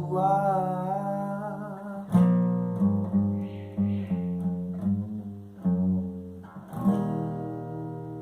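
Acoustic guitar playing the closing chords of a song, with a wavering sung note held over the first two seconds. The last chord, struck about seven seconds in, rings out and slowly fades.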